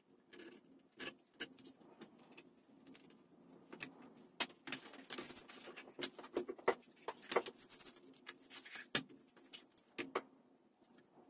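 Leatherworking at a bench: irregular clicks, taps and short scrapes as steel rulers and a square are picked up, set down and slid, and stiff vegetable-tanned leather is cut with a knife and moved, over a faint steady hum.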